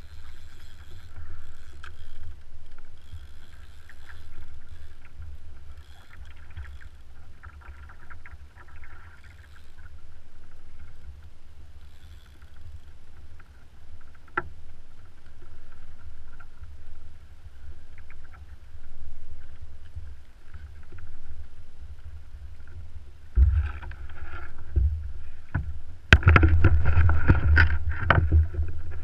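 Wind buffeting the microphone over river chop lapping against a kayak hull. Near the end come louder knocks and splashes as a sturgeon is handled in the kayak.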